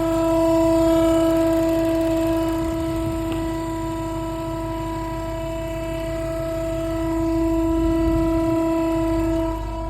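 Loud, steady horn-like drone with overtones over a low engine rumble from a 2017 Dodge Charger SRT Hellcat, wavering slightly near the end: the unexplained loud noise the owner wants diagnosed.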